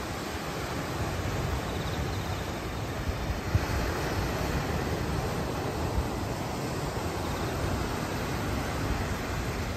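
Sea surf breaking and washing over a rocky shore, a steady roar of noise, with wind buffeting the microphone in low rumbles.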